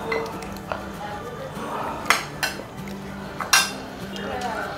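Steel serving spoon clinking against a ceramic curry bowl and plates while curry is ladled out: a few sharp clinks, the loudest about three and a half seconds in.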